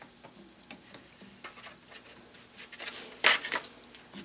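Small metal clicks and clinks as a lathe compound slide's crank handle is worked onto its keyed shaft, with a louder cluster of clinks about three seconds in.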